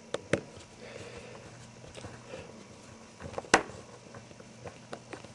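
A few small sharp clicks and taps of a small screwdriver and screws being worked into a mobile phone's case; two quick clicks just after the start and the loudest click about three and a half seconds in.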